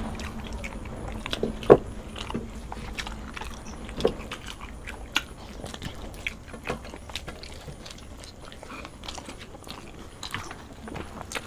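Close-miked eating: chewing and biting paratha flatbread with potato curry, full of scattered short wet smacks and clicks, two of them louder, a couple of seconds in and about four seconds in. A faint low hum lies underneath.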